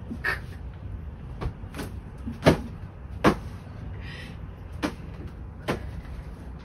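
Rummaging in a pulled-out wardrobe drawer: a string of about seven short sharp knocks and clatters of the drawer and the things in it, the loudest about two and a half seconds in.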